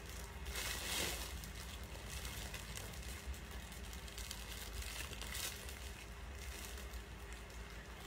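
Clothing fabric rustling as a top is handled and pulled on over the head, with a brief louder rustle about a second in. A steady low hum of room noise sits underneath.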